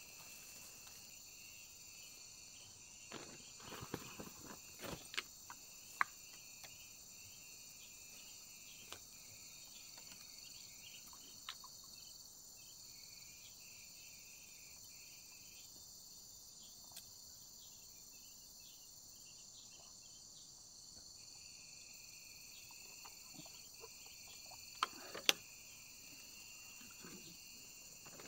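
Steady high-pitched chirring of an insect chorus, one part of it pausing for several seconds in the middle. A few scattered clicks and rustles, the sharpest about six seconds in and two near the end.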